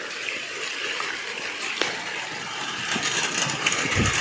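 Heavy rain pouring down: a steady hiss with scattered drips and taps, growing louder about three seconds in, with a short low bump near the end.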